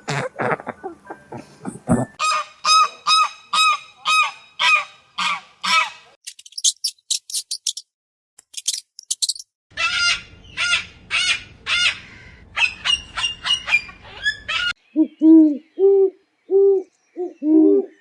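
A string of different animals' calls, one after another: runs of repeated honking calls, a stretch of high quick chirps between them, and low repeated hoots near the end.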